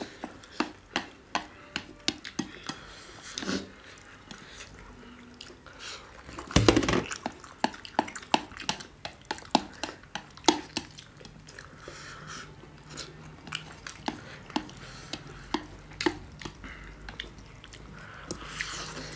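Close-up eating sounds: chewing and biting into a large chicken momo and noodles, with many small sharp clicks of chopsticks and fingers on steel plates, and one louder, longer noise about seven seconds in.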